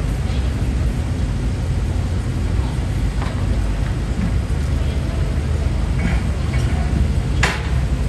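A large engine running steadily at idle, a low even rumble, with scattered background voices and one sharp click about seven seconds in.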